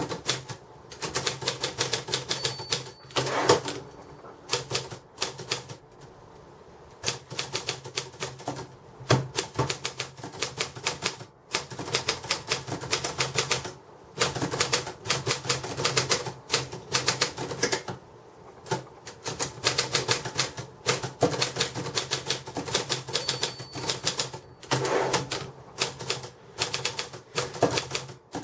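UNIS tbm de luxe typewriter being typed on: quick runs of key strikes, several a second, broken by short pauses.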